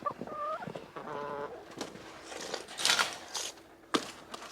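Chickens clucking, with two short pitched calls in the first second and a half, then scraping sounds and a single sharp knock near the end.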